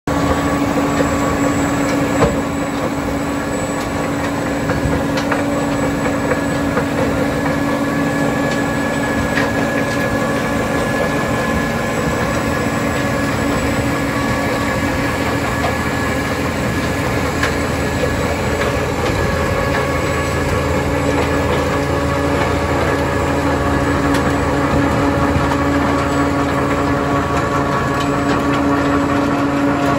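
HEN RBM-S tractor-mounted stone crusher working, its rotor running steadily as it crushes coarse gravel of a track surface, together with the tractor's engine under load. A few sharp clicks of stones being struck stand out now and then.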